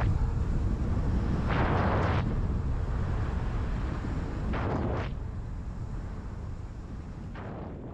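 Wind buffeting a GoPro's microphone while riding a mountain bike: a heavy low rumble with three short hissing surges a few seconds apart. It gradually dies down.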